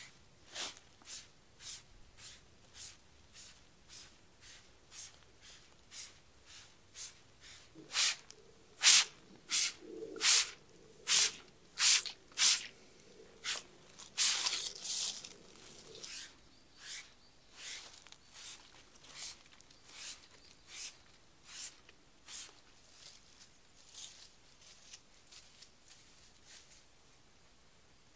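Hand pump spray bottle misting liquid onto tent fabric: a long series of short, sharp spray hisses, about two a second, loudest in the middle stretch.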